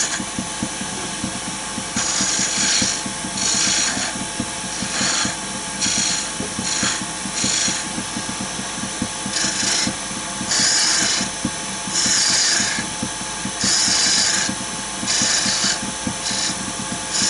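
Wood lathe running while a turning tool cuts a bead into a spinning wooden blank. The cutting hiss comes in about a dozen short passes of half a second to a second each, over the steady running of the lathe.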